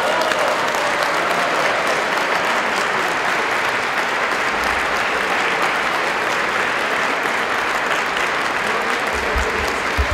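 An audience applauding steadily throughout, with a brief low thump near the end.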